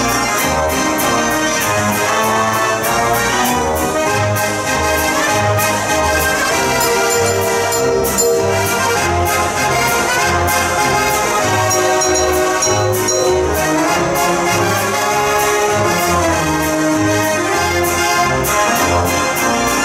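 Th. Mortier dance organ 'De Zeemeermin', with accordions built into its facade, playing a tune with brass-like pipe voices. A steady bass beats about twice a second under regular drum and cymbal strokes.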